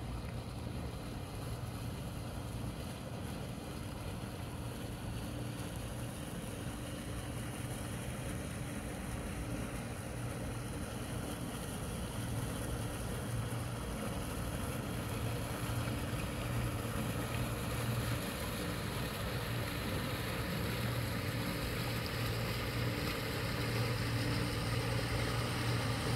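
Outboard motor of a center-console motorboat running steadily as the boat cruises past on the bay, a low even engine hum that grows a little louder toward the end.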